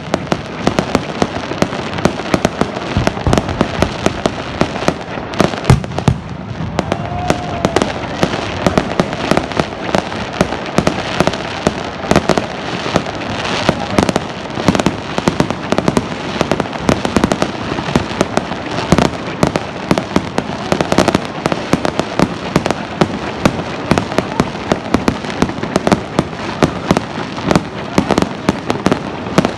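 Fireworks display: a continuous barrage of shells bursting and crackling in quick succession, many sharp bangs a second.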